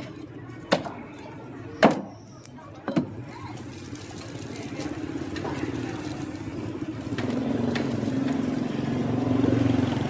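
Three sharp cleaver chops into roast pork on a chopping block in the first three seconds. Then a motorbike engine runs, growing louder.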